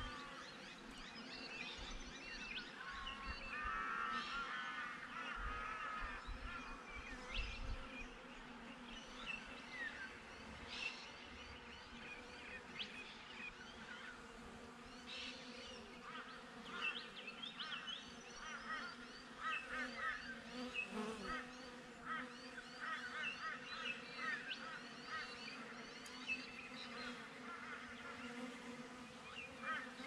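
Honey bees buzzing around a hive entrance, a steady low hum, with birds chirping and chattering throughout in quick runs of short calls.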